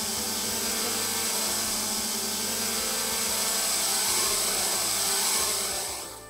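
Hexacopter drone's six electric motors and propellers whirring steadily in flight, a buzzing hum under a high-pitched whine. It fades out near the end.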